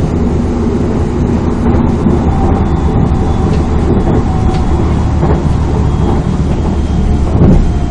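Running noise of a moving passenger train heard from inside the carriage: a loud, steady rumble of wheels on rails, with a few faint clicks and a brief swell near the end.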